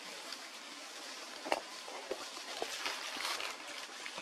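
Outdoor forest background: a steady hiss with scattered sharp clicks and light rustling, the loudest click about one and a half seconds in.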